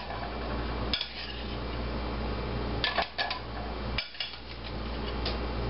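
Metal spoon clinking against a stainless-steel potato ricer as cooked potato chunks are spooned into its hopper: a few scattered clinks, with a quick cluster about three seconds in.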